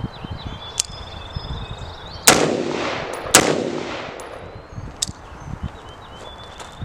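Two shots about a second apart from an AR-15 rifle with a 16-inch barrel, chambered in 5.56, each followed by a long echoing tail. There are fainter sharp cracks before and after them.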